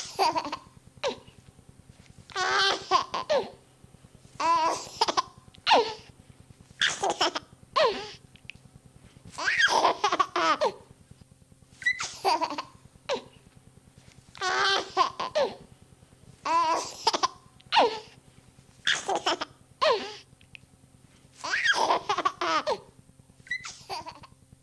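Baby giggling, a pre-recorded sound-effect track: short bursts of laughter every two to three seconds, over a faint steady hum from the tape.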